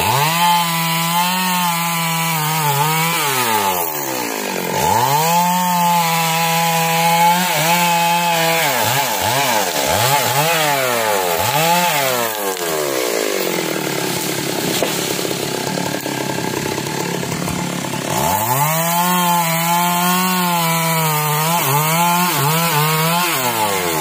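Two-stroke chainsaw cutting into a tree trunk at full throttle, its revs dipping and rising again several times. Past the middle it eases to a lower idle for several seconds, then runs at full revs again near the end.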